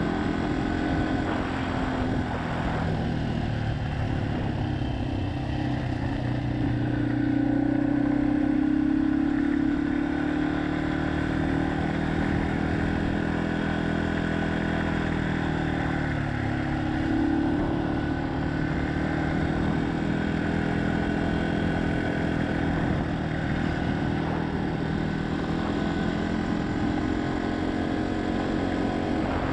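Yamaha XT250's single-cylinder four-stroke engine running while the bike is ridden. Its pitch climbs through the first several seconds, sags about halfway through and then rises again, over a steady low rumble.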